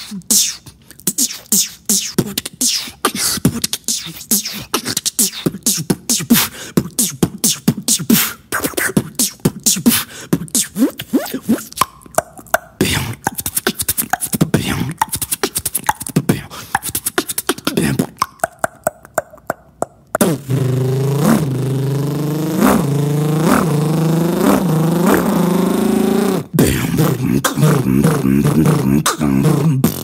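Vocal beatboxing with mouth-made sound effects: quick laser-like zaps and sharp clicks in a fast beat. About two-thirds of the way through it switches to a steady, low buzzing vocal drone that pulses rhythmically.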